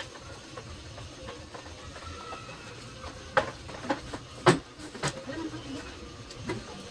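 A few sharp plastic knocks and clicks as a motorcycle's rear top box is handled, the loudest about four and a half seconds in.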